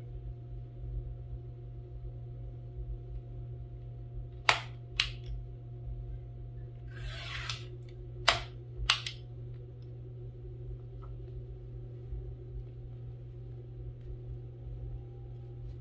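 Sliding paper trimmer working a sheet of transfer paper: two sharp clicks, a short swish of the blade cutting through the paper about seven seconds in, then two more clicks. A steady low hum runs underneath.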